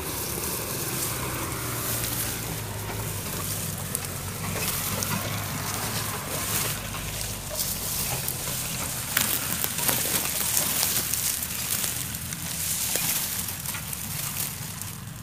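Footsteps pushing through grass and weeds, with stalks and dry grass rustling and crackling underfoot in many small irregular snaps.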